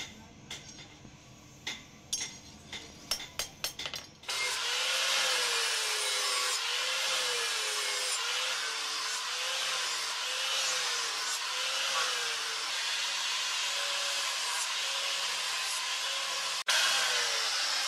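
Steel blade struck on an anvil with a hammer, about a dozen blows that quicken, then an electric angle grinder grinding the steel blade, its motor whine wavering up and down as it is pressed into the work. The grinding is louder than the hammering and breaks off briefly near the end.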